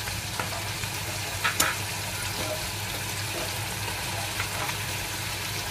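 Paneer cubes shallow-frying in oil in an iron kadhai: a steady sizzle, with a faint tick about a second and a half in.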